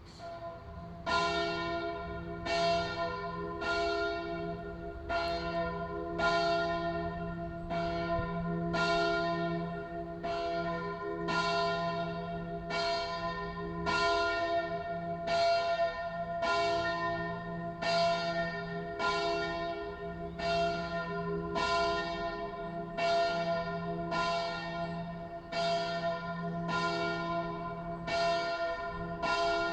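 Church bells ringing in a steady peal, with strikes about every second over a continuous low hum that swells and fades.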